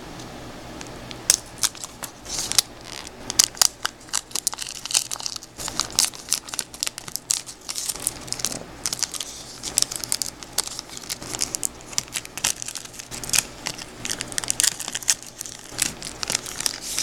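A trading-card pack's plastic wrapper crinkling and tearing as it is ripped open by hand, a dense run of irregular sharp crackles starting about a second in.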